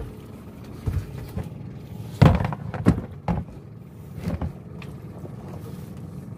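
Several knocks and thumps against a boat's hull, the loudest about two seconds in, as a fisherman moves about and handles rope, over a steady low hum.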